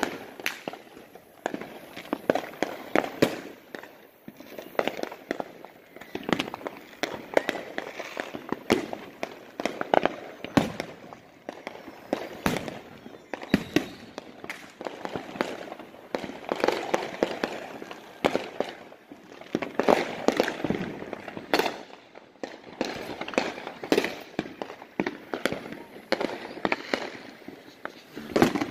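Many fireworks going off at once: an unbroken, irregular string of sharp bangs and pops, some near and loud, others fainter and farther off.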